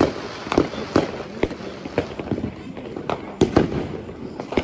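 Fireworks going off: a string of irregular sharp bangs and pops, sometimes two or three in a second, the loudest about three and a half seconds in.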